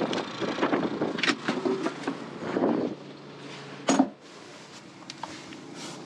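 Wind buffeting the microphone for about three seconds, then much quieter with a portable generator's low steady hum, broken by a single sharp knock about four seconds in.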